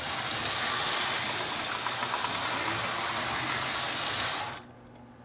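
Lionel USS 8350 switcher locomotive running around O-27 tinplate track: an electric motor whirring and wheels rattling on the rails, with a faint steady hum underneath. The noise stops abruptly about four and a half seconds in.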